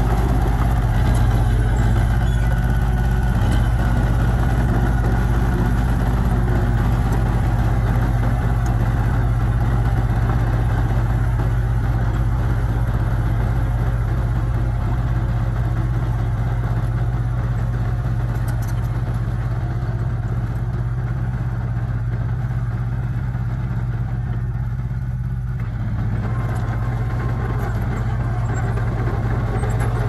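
Small Komatsu bulldozer's diesel engine running steadily while the dozer works a pile of dirt and rock. The sound eases off a little for a few seconds, then comes back up suddenly near the end.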